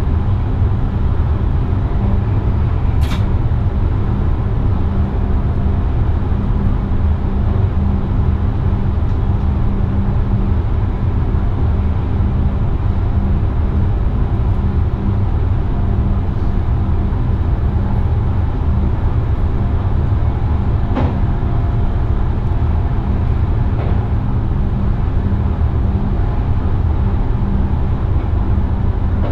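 Cab noise of an NS VIRM double-deck electric train running along the line: a steady low rumble with a constant hum, and a few sharp clicks about 3, 21 and 24 seconds in.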